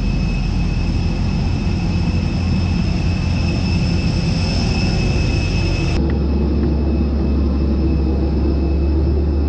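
Steady jet airliner noise on the apron: a loud rumble with a high, steady whine over it. The sound shifts abruptly about six seconds in, with the deep rumble heavier after the change.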